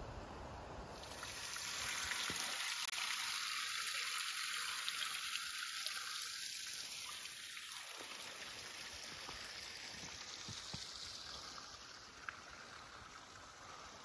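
Stream flowing: a steady hiss of running water that grows louder about a second or two in and slowly fades through the second half.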